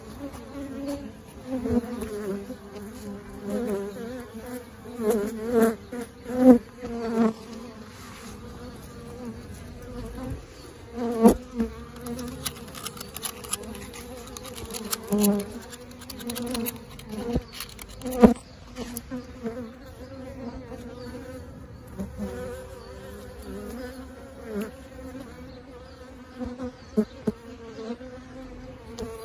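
Honeybees from a swarm nesting in cracks of a brick wall, buzzing continuously, with individual bees flying close past in louder swelling passes. There are a few sharp knocks along the way. The bees are angry.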